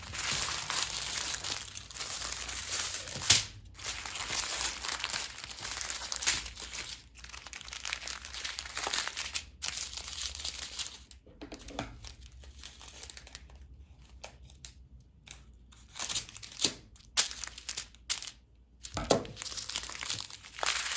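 Plastic packaging crinkling as it is handled: dense crackling for about the first half, then thinning to scattered crackles and clicks with short quiet gaps.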